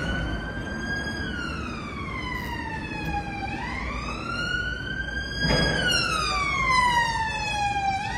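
A siren wailing in a slow fall and rise of pitch, about two seconds each way. A short knock sounds about five and a half seconds in.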